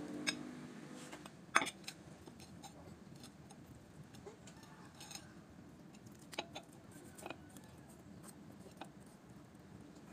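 Kitchen knife cutting through a cooked chicken on a glass plate: scattered clicks and taps as the blade meets the plate, the sharpest about one and a half seconds in.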